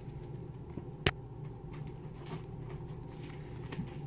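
Magic: The Gathering cards fresh from a booster pack being handled and slid through in the hands, with faint rustling and one sharp click about a second in.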